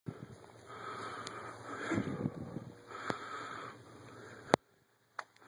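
Crunching footsteps on thin ice, rough bursts of noise close to a phone's microphone, then one loud sharp snap about four and a half seconds in.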